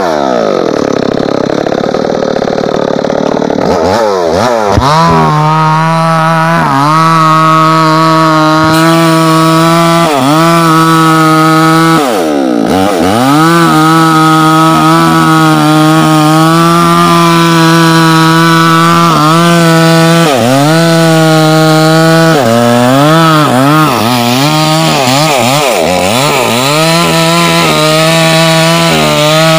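Two-stroke chainsaw cutting into a tree trunk at full throttle, its engine note steady under load. Every few seconds the throttle is eased and the pitch dips briefly before revving back up. For the first few seconds it runs slower before climbing to full speed.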